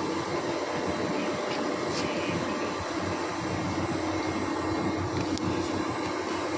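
Steady din of heavy sugar mill machinery running, with a constant low hum and a couple of faint light clicks.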